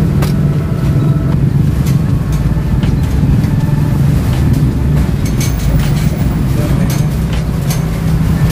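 Steady low rumble of street traffic, with a few faint scattered clicks.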